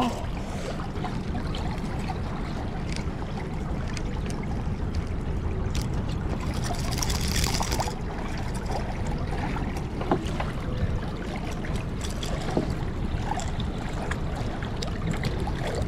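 Water splashing and trickling as a king salmon shifts in a landing net at a boat's side, over a steady low rumble. There is a louder splash about seven seconds in.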